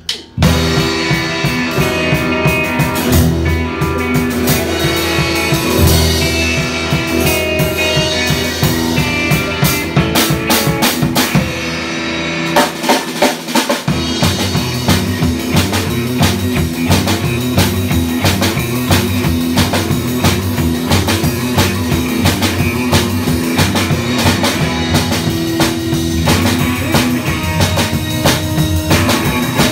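A live band playing an instrumental passage on electric guitar, upright double bass, drum kit and acoustic guitar, with the drums prominent. About twelve seconds in, the low bass drops out briefly, then the full band comes back in.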